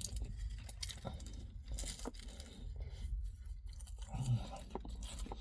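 A person eating a doner kebab close to the microphone: chewing and biting, with crinkling and tearing of its wrapping.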